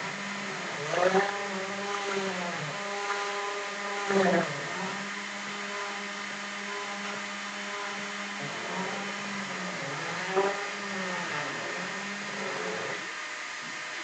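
Small CNC PCB mill engraving a copper-clad board. The spindle runs with a steady hum while the stepper motors whine, their pitch rising and falling as the axes speed up and slow down on each move. The noise is louder about a second in, around four seconds and near ten seconds.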